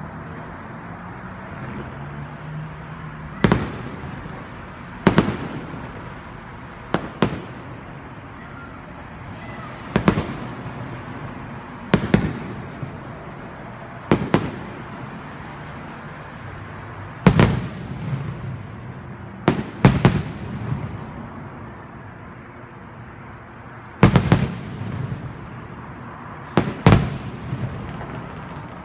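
Aerial firework shells bursting overhead: a dozen or so sharp bangs at uneven intervals, from under a second to several seconds apart, each trailing off in a rolling echo.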